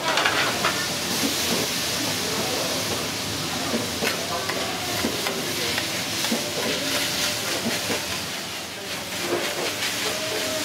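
Yakisoba noodles sizzling on a hot iron griddle, a steady hiss with steam, while metal spatulas scrape and clack against the plate now and then as the noodles are tossed.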